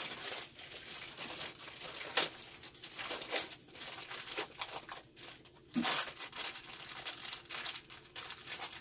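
Thin plastic cover being crinkled and torn off a new bicycle seat: irregular rustling crackles with a sharper rip about two seconds in. The cover is punched through by the seat's metal frame at the factory, so it has to be torn off.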